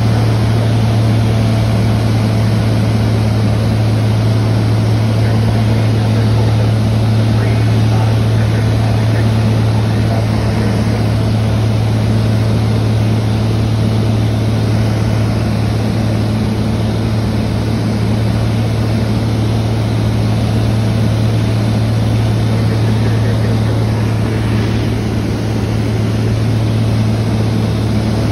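Cabin noise of a small high-wing propeller airplane in flight: the engine and propeller give a steady low drone over a constant rushing hiss.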